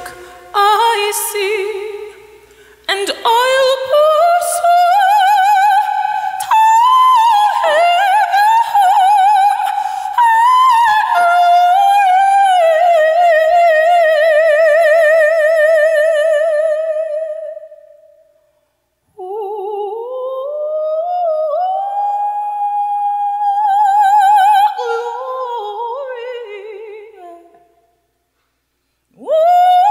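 A woman's solo voice singing a spiritual unaccompanied, with long held high notes in wide vibrato and climbing melismatic runs. Two short pauses come about two-thirds of the way in and near the end.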